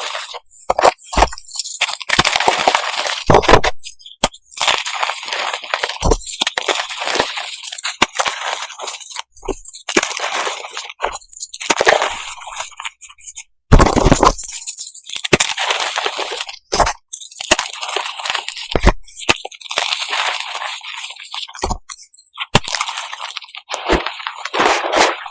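Reformed gym chalk pieces, moulded like M&M's, being crushed and crumbled: a rapid run of sharp cracks and crunches with gritty crumbling between them.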